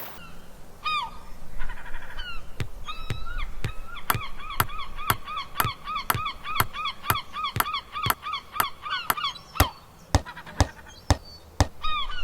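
Cartoon honking squeaks, short and high, repeated rapidly about four a second for several seconds over regular clicks about twice a second, with a few scattered squeaks and clicks before and after.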